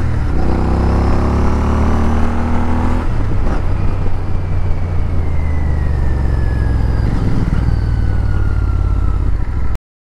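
Royal Enfield Interceptor 650's parallel-twin engine, heard from on board the moving motorcycle. The revs climb for about three seconds, then drop, and the engine settles into steady running. The sound cuts off suddenly near the end.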